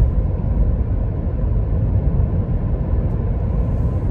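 Steady low road and engine rumble inside a moving car while it overtakes a truck.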